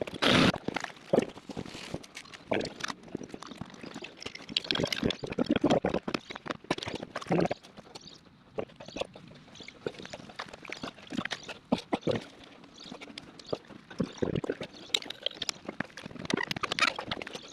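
Water spilling and splashing from an open water line while a pipe fitting is joined by hand, with irregular clicks, knocks and clinks from the fitting and tools.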